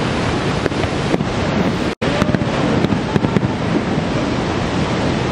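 Steady, loud roar of Niagara Falls' rushing water. A few faint sharp clicks sit on top, and the sound cuts out for an instant about two seconds in.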